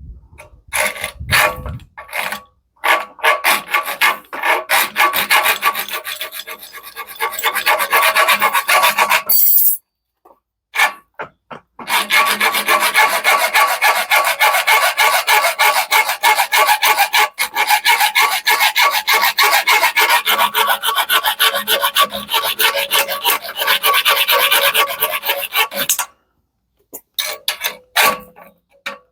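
Parkside PHSS 3 B1 hand saw with a metal-cutting sabre saw blade cutting a thick piece of metal in rapid back-and-forth rasping strokes. There is a short break about ten seconds in, and a few separate strokes at the start and near the end.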